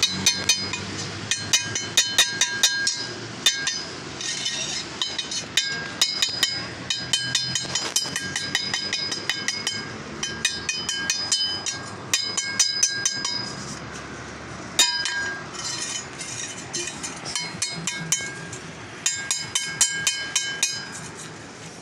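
A long steel tyre bar strikes and pries against the steel wheel rim of a Mahindra Bolero Camper, giving repeated ringing metallic clinks. They come in quick bursts of several a second, broken by a few short pauses, as the tyre is worked off the rim by hand without a machine.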